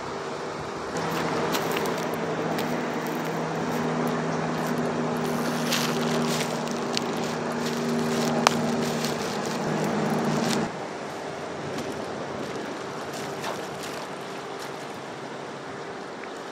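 Water splashing and sloshing in the shallows at the lake's edge as a hooked carp thrashes close to shore, over wind noise. A steady low hum starts suddenly about a second in and cuts off about ten seconds in.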